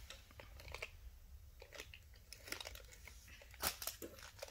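Faint, scattered clicks and rustles of hard plastic toy pieces and packaging being handled, with a couple of louder clicks near the end.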